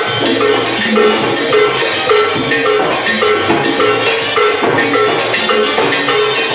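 Live Latin dance band playing an instrumental passage, a cowbell struck on a steady beat about twice a second over drums and other percussion.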